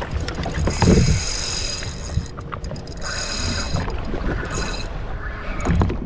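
Spinning reel whirring in spells of a second or two while a hooked mahi-mahi is fought on rod and line, with a couple of low thumps.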